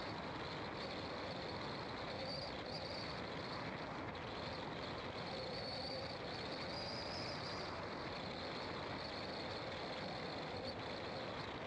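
Car driving on a winding road: steady engine and tyre noise, with a thin high-pitched tone that swells and fades.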